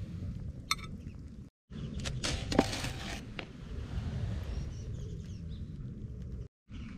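Metal cooking chopsticks clinking and tapping against a small frying pan as slices of beef are laid in, with a cluster of clicks about two to three seconds in. Under it runs a steady low rumble of wind on the microphone.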